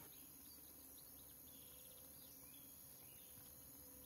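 Near silence: faint woodland ambience with a few soft, distant bird chirps.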